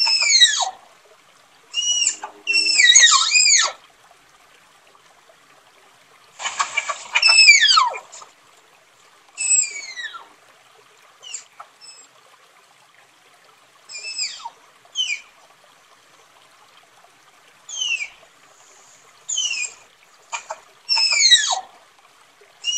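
Tapir calls: a series of shrill, high-pitched whistles, each sliding downward in pitch, coming singly or in quick clusters with pauses between. The longest and loudest call comes about a third of the way through.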